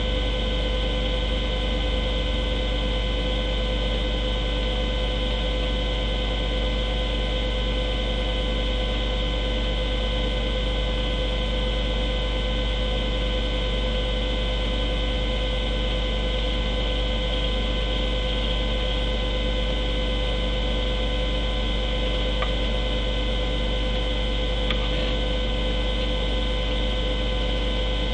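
Steady electrical hum with a high whine and a hiss, unchanging in level.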